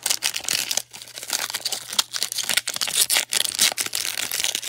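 A foil wrapper of a Panini Donruss basketball card pack being torn open and crinkled by gloved hands, a dense run of sharp crackles as the cards are pulled out.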